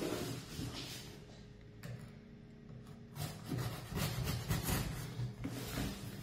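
A knife slitting the packing tape on a cardboard box: a rough, scraping rasp in short strokes, loudest in the last few seconds, after a quieter rustle of the box being handled on the wooden table.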